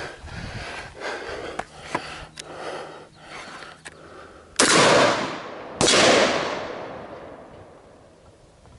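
Two rifle shots about a second apart from a short-barreled Tier 1 Citizen 7.5 AR-style rifle, each very loud with a long fading echo. Before them, light footsteps and knocks of gear as the shooter moves into position.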